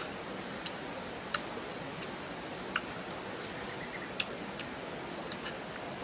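Scattered sharp clicks, irregularly spaced, over a steady hiss: small green fruits being picked off their stems by hand.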